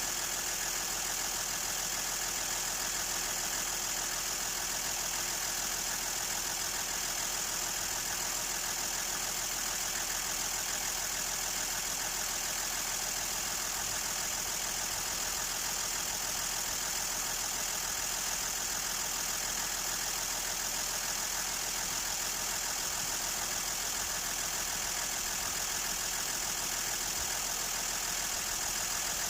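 Toyota Land Cruiser 60 engine idling steadily, with a steady high-pitched hiss over it.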